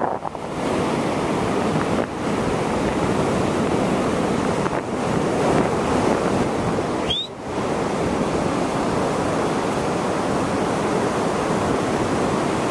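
Sea surf washing onto a sandy beach as a steady rushing noise, with wind buffeting the microphone.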